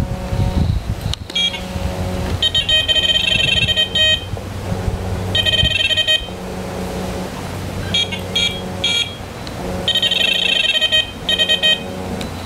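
Electronic carp bite alarm sounding with high-pitched beeps. Bursts of rapid beeping last one to two seconds, with three short single bleeps in between.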